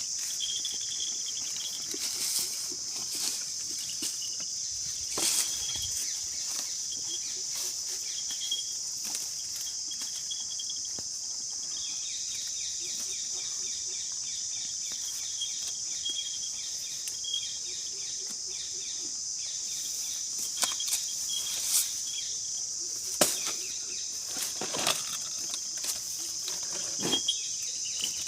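A cow eating, heard as scattered sharp crunches and rustles, a few louder ones in the last third, over a steady high-pitched insect drone.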